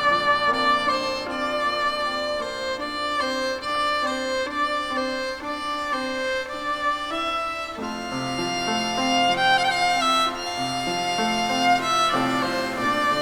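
Violin music, a melody of held bowed notes, with lower accompanying notes coming in about eight seconds in.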